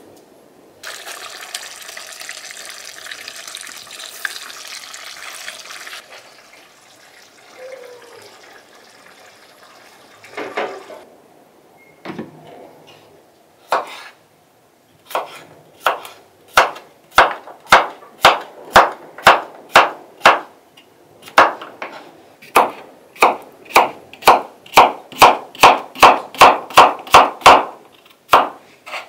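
Kitchen knife slicing a cucumber into rounds on a wooden cutting board: a run of sharp knocks as the blade goes through onto the board, about two a second, quickening near the end. Near the start, a few seconds of steady rushing noise.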